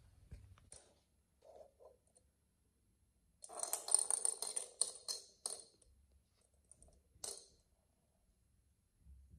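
Plastic cage-ball cat toy rattling as it rolls on a hard floor, its loose rattle jingling for about two seconds in the middle, then once more briefly a second and a half later.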